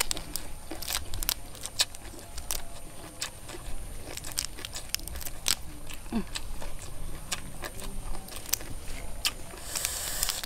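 Shell of a boiled whole prawn cracking and crackling as it is twisted apart and peeled by hand: irregular sharp clicks and snaps.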